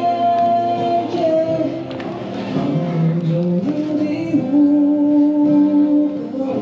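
Music with a voice singing long, held notes.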